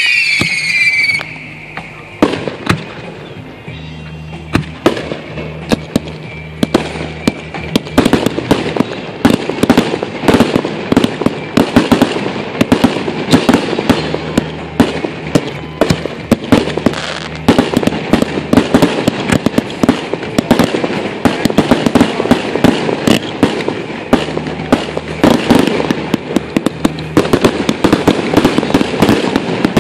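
Aerial fireworks going off. A falling whistle dies away about a second in, followed by a continuous barrage of sharp bangs, pops and crackling that grows denser toward the end.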